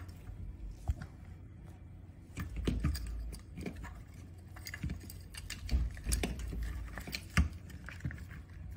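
Handling noise: scattered light clicks, taps and rustles as wires are fed through a metal handlebar tube and a plastic throttle housing is fitted onto it, with a few dull knocks.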